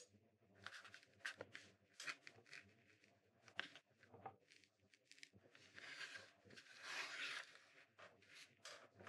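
Faint scraping of a V-shaped carving knife cutting into a woodblock: a run of short cuts, then two longer ones around the middle.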